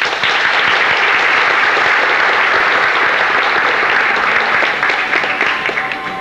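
Theatre audience clapping as a sung stage number ends, a dense wave of applause that breaks out at once and tails off near the end.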